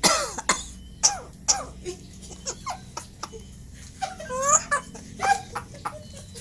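Tame pet starling calling: a run of short sharp notes, clicks and quick whistled glides, loudest right at the start and again about four and a half seconds in.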